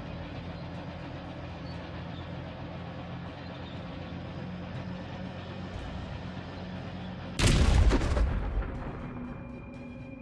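Background music, cut through about seven seconds in by a single loud blast from a combat explosion or weapon firing, which dies away over a second or two.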